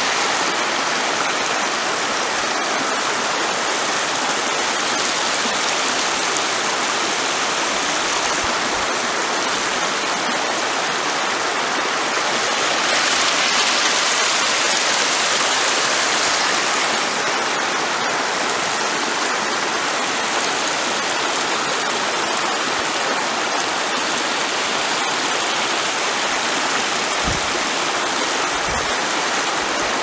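Small stream cascading down a steep rocky channel, a steady rushing and splashing of water over stones.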